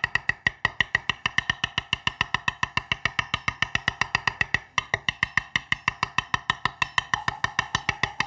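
Live band music with a fast, even percussive beat, about eight strikes a second, played along with rapid chef's-knife chopping of flat-leaf parsley on a wooden cutting board.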